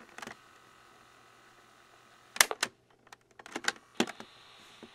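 Piano-key buttons of a small RCA portable cassette recorder clacking as they are pressed several times: once at the start, once about two and a half seconds in and a few times around three and a half to four seconds in. Between presses the small tape motor runs faintly, and a steady tape hiss follows the last press.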